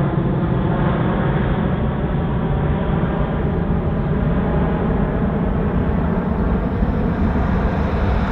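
Boeing 747-400 freighter's four turbofan engines at climb power just after takeoff: a steady, deep rumble.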